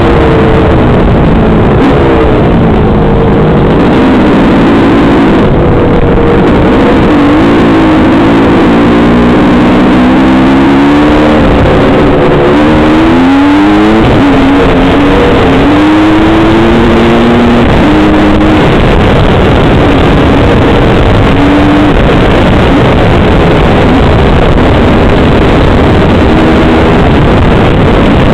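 Dirt bike engine revving up and down through the gears, its pitch climbing and dropping several times in the first half and then settling, under heavy, near-constant wind roar on the helmet-mounted microphone.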